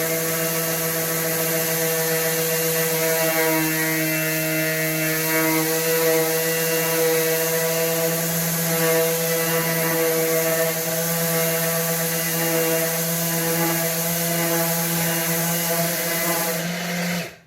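DeWalt DCW210N 18V brushless 125 mm random orbital sander running steadily while sanding a filled surface, with no dust extractor attached. It gives a loud, even hum that stops abruptly near the end.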